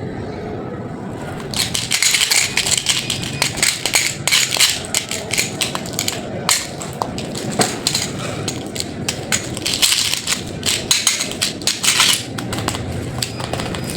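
Candy packaging being handled and unwrapped: dense, irregular crinkling and crackling of wrappers. It starts about a second and a half in and eases off near the end.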